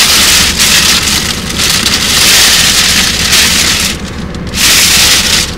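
Car air conditioning blowing: a loud, even rushing hiss that dips briefly about four seconds in.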